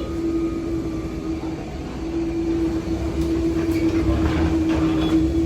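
Steady mechanical drone: a constant hum at one pitch over a low rumble, with a few faint clicks in the second half.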